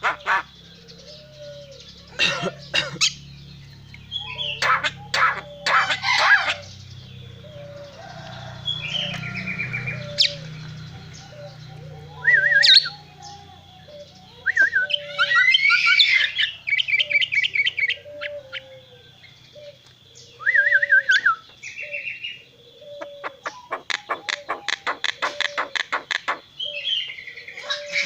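Javan myna calling in bursts of harsh, rapid rasping clicks, the cough-like sound it gives here, between short whistled chirps and chattering phrases. A soft, low repeated note sounds about once a second through the first two-thirds.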